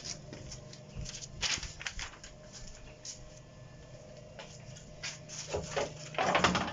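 Scattered clicks and rustles of objects being handled, over a steady low hum, with a louder rustle near the end.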